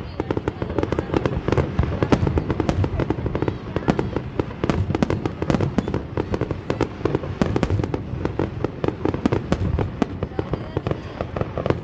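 Fireworks going off in a rapid, unbroken barrage of bangs and crackles.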